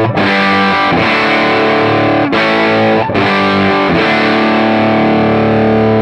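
Electric guitar through an overdriven valve amplifier: a run of distorted chords, each struck and left to ring. The amp is set to a 25 µF cathode bypass capacitor on the input stage, a fixed-bias output and negative feedback switched off.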